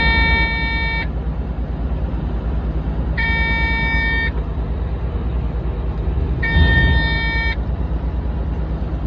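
Motor grader's diesel engine running steadily, with three identical electronic beeps, each about a second long and about three seconds apart.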